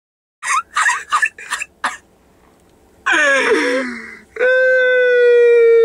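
A boy's exaggerated crying: five short, sharp gasping sobs, then a wail that falls in pitch, then one long, steady high wail.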